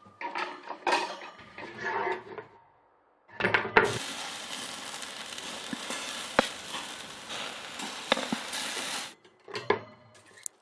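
Scraping and knocking of a wooden peel and metal tongs against a kettle grill's grate for the first two seconds or so. Then a giant burger patty sizzles on the hot grate, a steady hiss with a few sharp clicks, which cuts off about nine seconds in.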